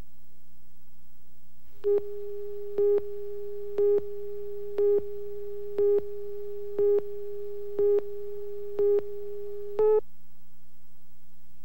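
Videotape slate countdown beeps: nine short beeps of one mid pitch, one per second, the last slightly higher and louder. A steady low mains hum runs under them.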